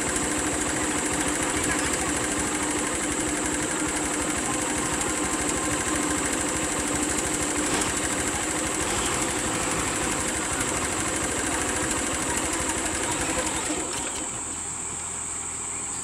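Diesel bus engine idling steadily, with a steady high-pitched whine above it; the sound drops a little in level about fourteen seconds in.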